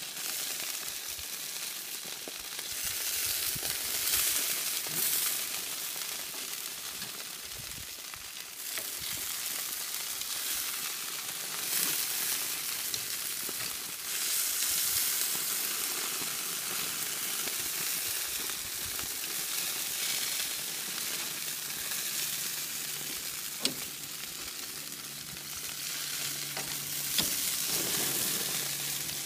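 BBQ-sauced chicken pieces sizzling on a grill grate: a continuous hiss of fat and sauce that swells and fades, with a few sharp pops.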